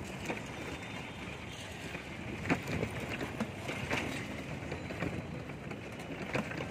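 Cycle rickshaw rolling along a city road: a steady rumble of wheels and street traffic, with a few short sharp knocks from the ride.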